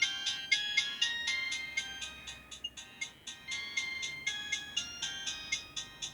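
Samsung GT-E1200i mobile phone ringtone playing: a quick electronic melody of short, clipped notes, about four a second.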